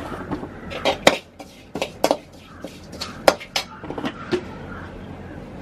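Steel spoon scraping and knocking against an aluminium pan while dry-roasting grated coconut with chili powder, heard as a string of irregular clicks and scrapes.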